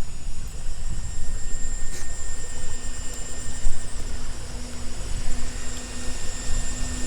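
Outdoor ambience: a steady rumbling noise with a constant thin high-pitched tone above it, like insects buzzing.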